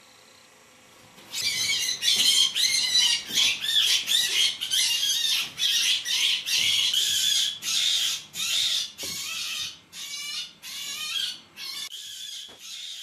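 Rabbit screaming in distress while a stoat attacks it: a run of shrill, wavering cries about two a second. The cries start about a second in and grow weaker toward the end.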